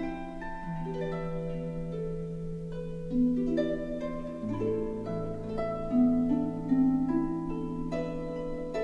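Background music: gentle plucked-string, harp-like notes over a low held bass note, the chords changing about every second.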